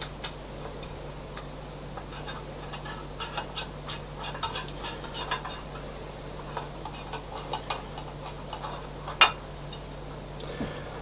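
Light clicks and clinks of small hardware being handled while a spool holder is fitted to a Geeetech A20 3D printer frame, with one sharper click about nine seconds in, over a steady low hum.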